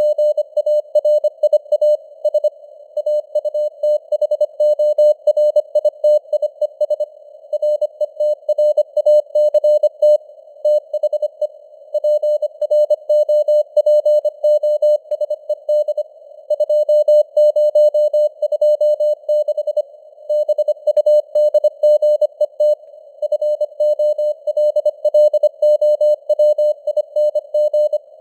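Morse code (CW) sent at 25 words per minute as a single mid-pitched tone keyed rapidly on and off, with short pauses between words. It sits over a narrow band of simulated radio static, and the signal strength varies as it fades. The code spells out news headlines.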